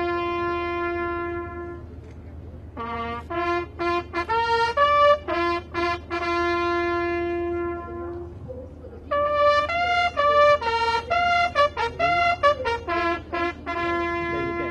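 Solo bugle sounding a ceremonial naval call: a long held note, a pause, a phrase of notes climbing and falling, another pause near the middle, then a run of quicker notes ending on a long held note.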